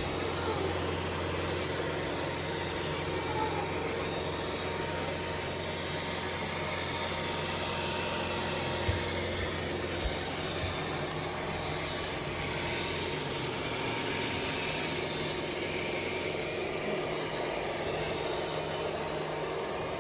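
ECOVACS DEEBOT X8 Pro Omni robot vacuum running: a steady whir of its suction motor with a low hum, and a few light knocks around nine and ten seconds in.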